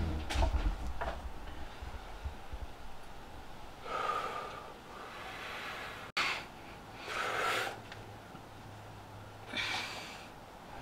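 A young man breathing hard while doing push-ups, with three heavy breaths about three seconds apart.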